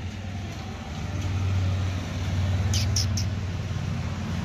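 Dogs play-fighting, growling low and continuously, louder through the middle, with three short high squeaks about three seconds in.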